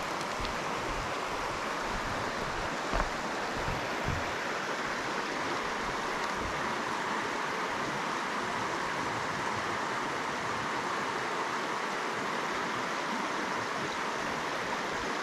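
Steady rushing water of a mountain trout stream, with a few soft low thumps in the first few seconds.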